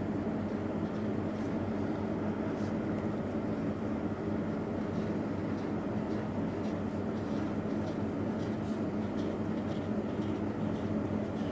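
Steady machine hum with a few fixed low tones, unchanging throughout. Over it, faint scratches and taps of a felt-tip marker on paper as small circles are drawn.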